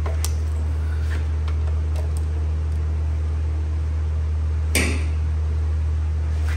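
Steady low hum, with a few light clicks of hand tools and one sharper metal clink about five seconds in, as the oil drain plug is worked loose.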